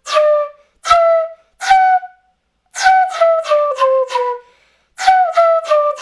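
Quena (Andean notched flute) played with a breathy 'dirty attack': each note opens with a rush of wind noise before the clear tone comes in. Three separate notes step upward, then two quick runs of short notes fall in pitch.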